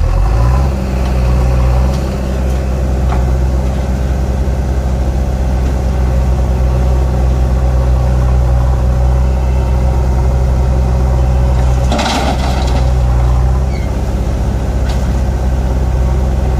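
Swaraj 744 FE tractor's three-cylinder diesel engine revving up and then running steadily under load, hitched to a loaded soil trolley. About twelve seconds in, a brief harsher noise lasting about a second and a half, with the engine note dipping.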